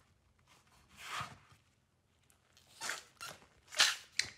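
A slab of thick green slime being cut with a knife and then squeezed in a fist, giving about five short, noisy squishes that get louder toward the end.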